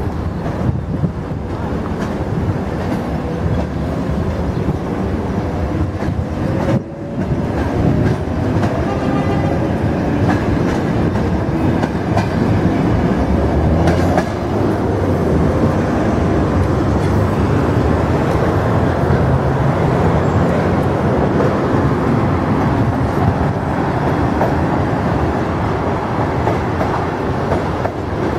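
Suburban electric train under way, heard from aboard: a continuous rumble and clatter of wheels on the rails, with a rising whine as the train picks up speed about a third of the way in.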